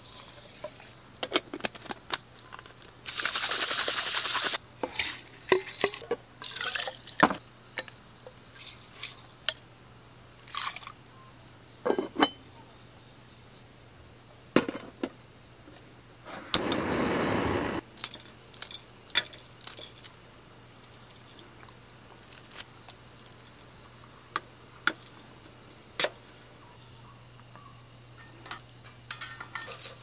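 Dishes and glassware being handled, with scattered clinks and knocks, and two short spells of liquid pouring: one about three seconds in and one about halfway through.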